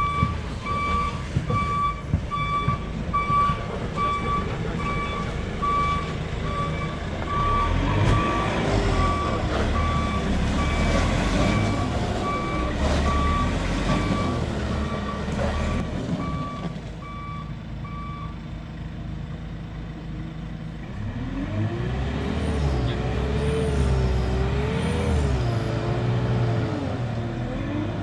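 Heavy off-road vehicle manoeuvring: its reversing beeper sounds about once a second until some way past the middle, over a diesel engine that revs up and down in waves twice.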